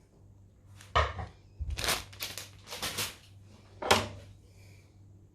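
Kitchen knife cutting into a raw potato threaded on a skewer, hand-cutting a spiral: four or five separate short cuts about a second apart, the sharpest near the end.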